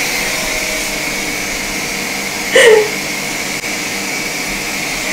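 A steady whirring noise of a motor running, with a short voice-like sound about two and a half seconds in.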